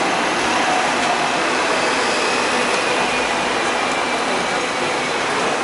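Hong Kong double-decker tram running along its street tracks, heard from the upper deck: a steady rolling noise with a faint thin whine above it.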